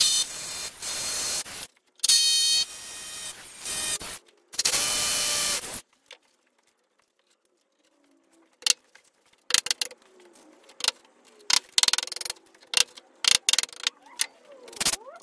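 Cordless drill run in three bursts, each a second or two long, while fixing an OSB board to the wall. After a short pause comes a scatter of sharp knocks and clatter.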